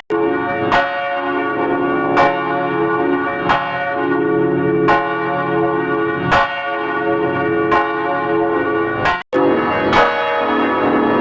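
Church bells ringing, with a fresh strike about every second and a half over a dense, sustained ringing tone. The sound drops out for an instant about nine seconds in, then the ringing carries on.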